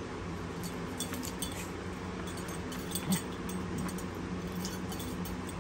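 Puppies and a grown dog play-wrestling on dog beds: scuffling with scattered light clicks and clinks, over a steady low hum.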